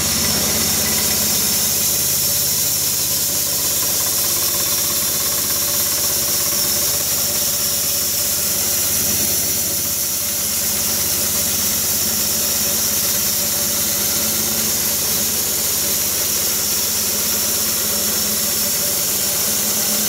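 DACK SMP 13/85 band sawmill running unloaded at full throttle: the petrol engine at maximum revs drives the band blade at full speed through the freshly tensioned drive belt. A steady engine drone with a high hiss over it, unchanging throughout.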